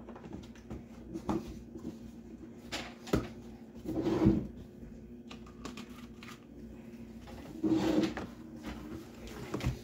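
White plastic Mainstays three-tier cart being handled and shifted: light plastic clicks and knocks, with two louder scrapes of its plastic trays about four and eight seconds in.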